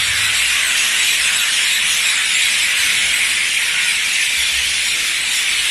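A large flock of birds gathering to roost in a tree, their many calls blended into one dense, steady chattering din with no single call standing out.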